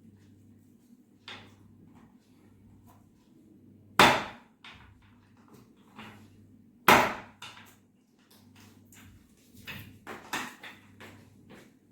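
Two loud, sharp knocks about three seconds apart during a chiropractic adjustment, with lighter clicks and taps around them and a cluster of smaller knocks near the end.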